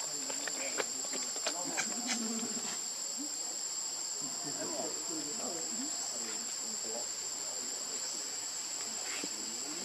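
Steady high-pitched insect chorus droning without a break, with faint distant voices murmuring underneath and a few light ticks in the first couple of seconds.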